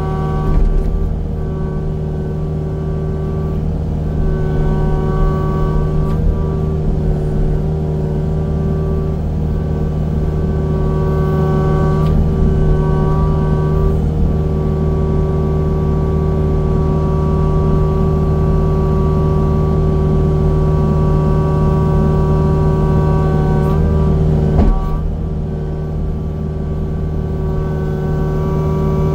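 Engine of heavy land-clearing machinery running steadily, a constant low drone with a higher whine that comes and goes. There is a brief knock about 25 seconds in.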